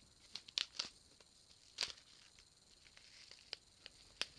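Mouth noises while eating popping candy: faint, irregularly spaced clicks and crackles.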